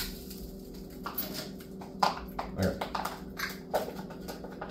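Handling of a spool of 3D-printer filament in its clear plastic wrapping: irregular clicks, knocks and plastic rustling, with a sharp click at the start. A steady low hum runs underneath.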